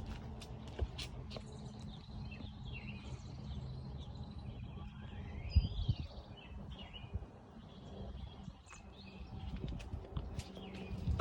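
Birds chirping faintly over a steady low outdoor rumble, with a few small scattered clicks.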